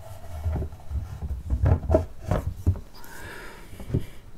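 Handling knocks and light taps of a drawer front being set against the cabinet and pressed into place by hand, with a quick run of knocks in the middle and some rubbing of hands on the panel.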